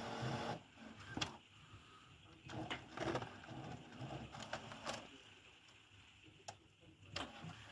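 Epson Expression Premium XP-6000 inkjet printer's paper feed running: a steady mechanical hum for about half a second stops, then faint scattered clicks and short whirring sounds follow. The printer is trying and failing to pick up the loaded photo paper, ahead of a false out-of-paper error.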